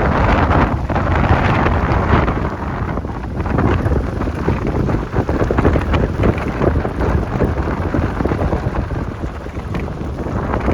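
Wind buffeting the microphone: a loud, uneven rumble that rises and falls.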